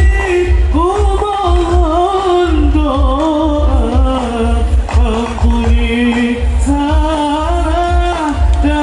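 Sholawat, an Islamic devotional song in Arabic, sung with long held notes that bend and waver in pitch, over a steady low drum beat.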